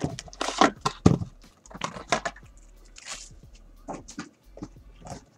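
Hands handling a cardboard trading-card box: rustling, scraping and light knocks of cardboard, busiest in the first two seconds, then a few scattered taps.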